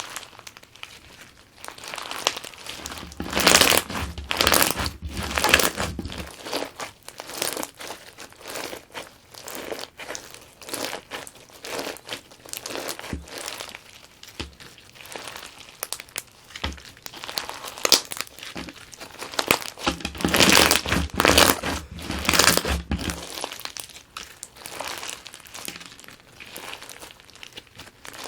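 Crunch slime packed with plastic perler beads being squeezed and kneaded by hand, giving a dense crackling of many small clicks and pops. It grows louder twice, a few seconds in and again about two-thirds of the way through.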